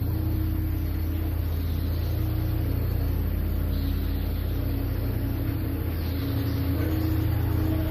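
Low, steady droning suspense underscore, with a few held higher notes that shift every second or two.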